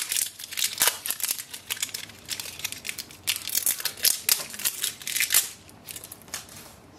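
Protective plastic seal being peeled and crinkled off a Canon ink cartridge: an irregular crackling that dies away about five and a half seconds in.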